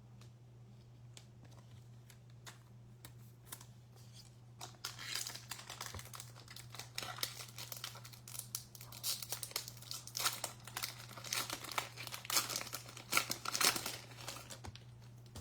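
A baseball card pack's wrapper being torn open and crinkled by hand. There are a few light ticks at first, then dense crinkling from about five seconds in until near the end, over a low steady hum.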